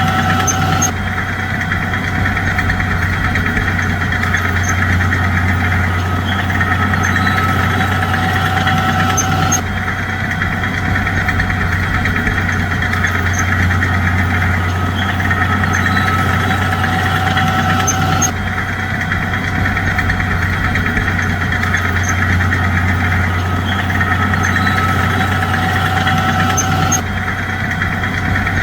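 Heavy diesel engine of a bulldozer running steadily, with a deep hum and a rough knocking edge. The same stretch of sound seems to repeat about every nine seconds, with an abrupt jump each time.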